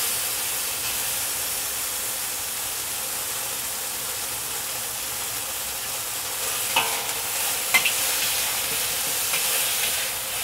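Chicken pieces sizzling steadily in oil in a very hot wok as they are pre-seared. About seven and eight seconds in, a couple of brief metal clinks of a spatula against the wok.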